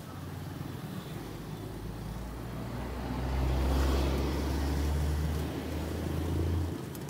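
A motor vehicle's engine running close by with a low steady hum, growing louder a few seconds in and dropping away near the end, over a constant street background.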